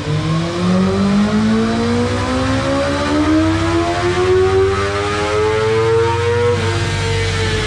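BMW S1000RR's inline-four engine pulling under throttle, its pitch rising steadily for about six seconds before the revs ease off and fall.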